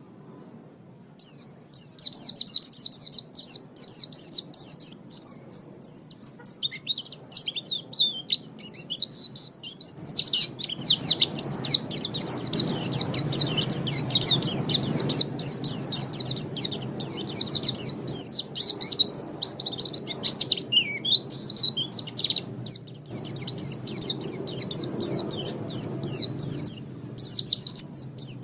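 A white-eye (pleci) singing a long, fast, high-pitched twittering song of rapid notes with hardly a break, starting after a short pause at the beginning. A low background rumble sits under the song from about the middle on.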